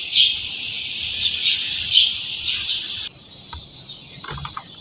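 A steady, high insect chorus with a few short bird chirps over it, which cuts off about three seconds in; a few light knocks follow as a hand works a washing machine lid.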